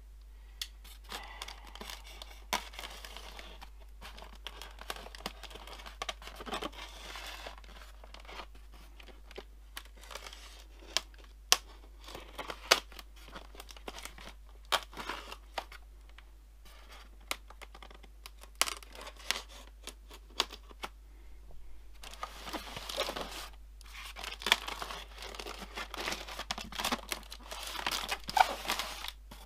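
Polystyrene foam packing box being worked open by hand: foam rubbing, scraping and tearing, with many sharp clicks and knocks, busier near the end.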